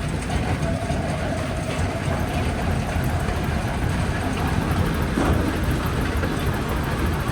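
Jaw crusher running and crushing rock: a steady, heavy low rumble with grinding noise over it.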